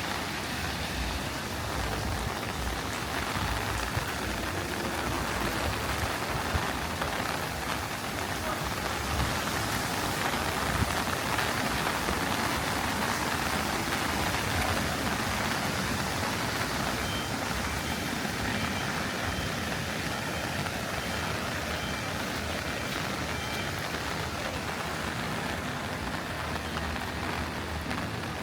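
Heavy rain pouring down on a flooded street, a steady, even hiss.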